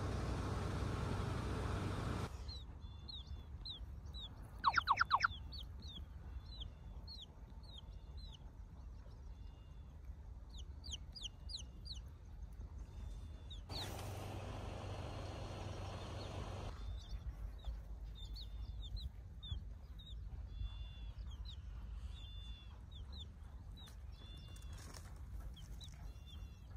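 Baby chick peeping: a steady run of short, high peeps, with a brief loud rapid trill about five seconds in and a few higher, quicker chirps. A broad rushing noise covers the first two seconds and returns for about three seconds in the middle.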